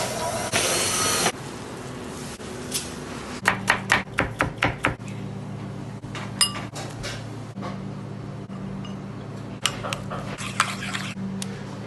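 A metal spoon clinking and scraping on a ceramic plate as purée is mixed, first in a quick run of sharp clicks a few seconds in and then in scattered clicks later, over a steady low hum. A short rushing noise fills the first second or so.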